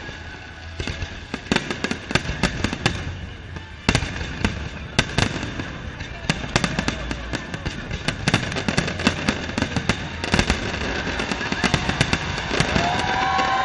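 Aerial fireworks going off overhead: a rapid, irregular run of bangs and crackling from bursting shells, growing denser and louder toward the end.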